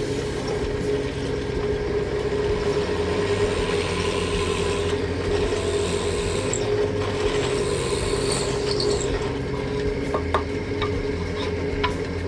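Electric scroll saw running steadily, its blade moving up and down in a rapid, even chatter over a constant motor hum, with a few sharper clicks near the end.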